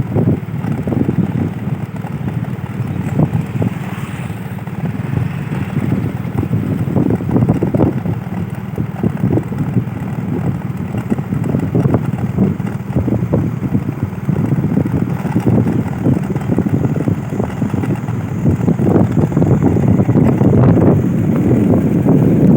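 Wind buffeting the microphone in irregular gusts, loud and low-pitched.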